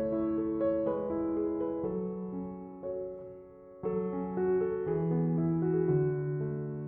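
Background music: soft electric piano playing slow chords, with new chords struck at the start and again about four seconds in.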